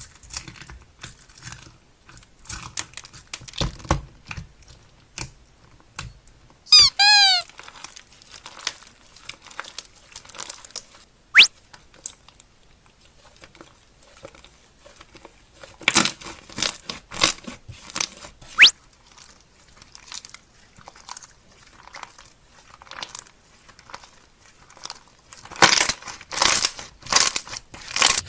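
Slime being squished and stretched by hand, with sticky crackling and small pops. Edited-in cartoon sound effects are laid over it: a falling, wobbling chime about seven seconds in and a quick rising whistle a few seconds later.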